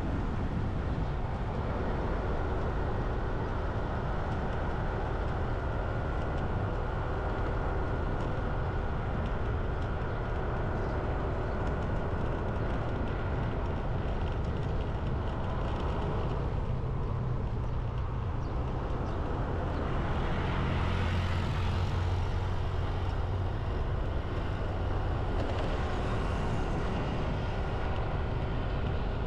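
Steady road and engine noise of a vehicle driving through city traffic, with a brief swell about twenty seconds in.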